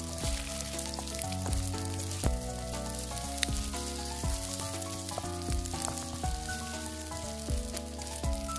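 Food frying in oil in a frying pan: a steady sizzle, under gentle background music.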